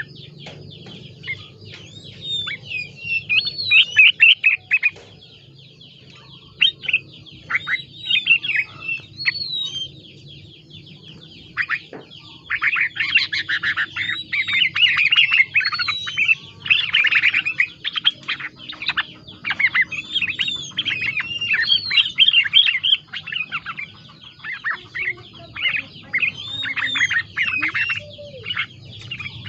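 Yellow-vented bulbul (terucuk) singing in bursts of quick chirps and sliding whistles, its song filled with imitated green leafbird (cicak ijo) phrases.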